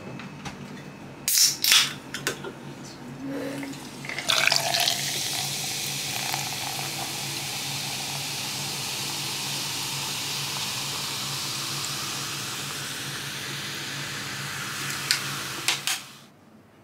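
Water pouring in a thin, steady stream into a stainless steel tumbler, a hiss that starts about four seconds in and lasts about twelve seconds. A few sharp knocks and clinks come before it, and two clinks come just before it stops.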